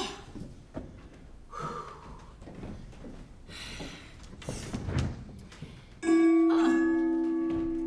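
Two-tone doorbell chime: a higher note and then a lower one about half a second later, both ringing on and slowly fading. Before it, a few soft knocks and thuds.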